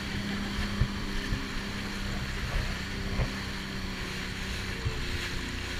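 Jet ski engine running steadily at speed across open water, with rushing water, wind on the microphone and a few short low thumps.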